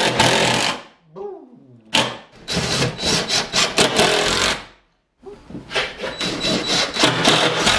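Cordless DeWalt drill driving fasteners through a steel mounting plate into the wall, in three runs with short pauses. After the first run the motor winds down in a falling tone.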